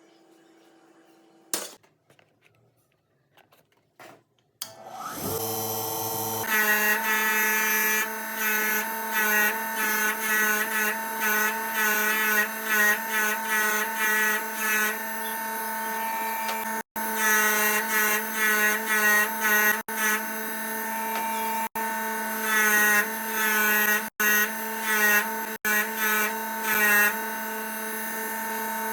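An electric power tool's motor spins up about five seconds in and runs steadily with a high whine. It swells louder at times as the tool bears on the metal, and drops out abruptly for an instant several times. Before it starts there are only a few faint clicks.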